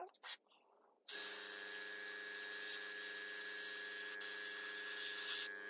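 Airbrush spraying paint: a steady hiss of air and paint that starts about a second in, with a low steady hum alongside, dipping briefly near the end as the trigger eases.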